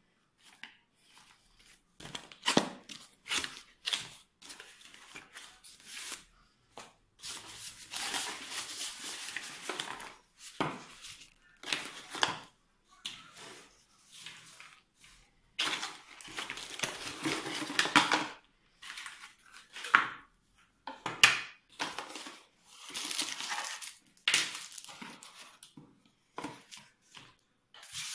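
Unboxing noise from a cardboard box and plastic-bagged parts: irregular rustling and crinkling of plastic wrap and cardboard, with short knocks as pieces are set down on a wooden table. Two longer stretches of rustling come about a third and two thirds of the way in.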